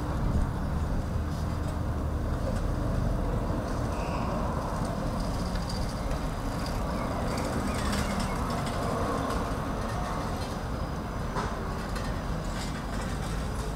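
Busy city traffic ambience: a steady low rumble of buses and traffic, with bicycles rolling past close by on brick paving and a few short clicks and rattles.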